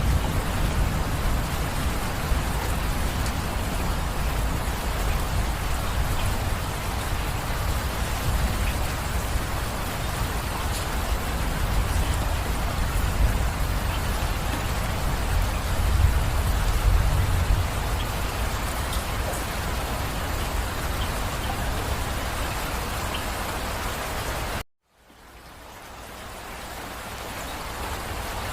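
Steady heavy rain falling, with scattered sharp drop ticks and a low rumble that swells briefly past the middle. Near the end the sound cuts out abruptly and fades back in.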